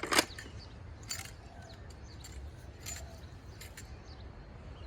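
A few light clicks and clinks, spaced a second or so apart, over a faint steady background, as hard objects are handled.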